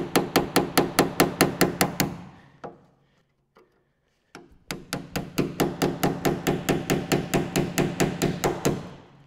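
Hammer striking a chisel driven into the spot-welded seam of a Fiat Dino's steel body panels, splitting the spot welds to separate the panels. Quick, even, ringing metal blows at about six a second, stopping for a couple of seconds around two seconds in, then resuming.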